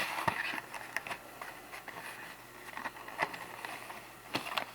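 Faint, scattered light clicks and rustles of hands handling objects on a tabletop.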